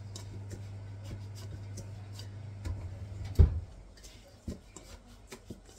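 A whisk scraping and clicking in a stainless steel bowl, stirring dry semolina and shredded coconut in small, light ticks. A steady low hum runs under it and stops after a single thump about three and a half seconds in.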